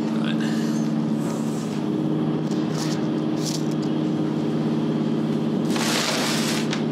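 Steady hum and rumble of a train car's interior. There are a few light clicks near the middle and a brief rasping noise about six seconds in.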